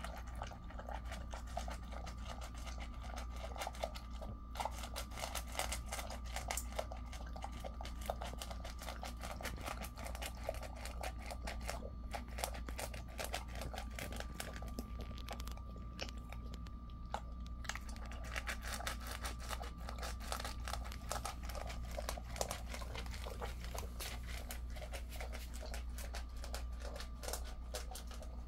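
Jindo-mix dog eating wet food from a stainless steel bowl: rapid wet chewing and smacking with a few short pauses, over a faint steady hum.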